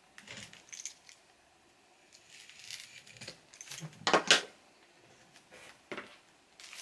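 A vinyl LP's cardboard gatefold sleeve being turned over and handled inside its clear plastic outer sleeve: scattered crinkling and scraping of plastic and card, loudest about four seconds in.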